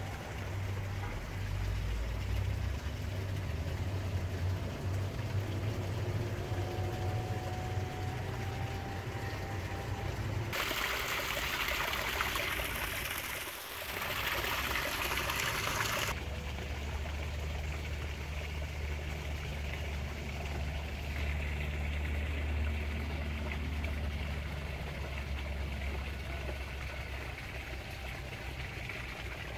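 Small garden waterfall splashing into a pool, loudest for about five seconds in the middle and starting and stopping abruptly, over a steady low hum.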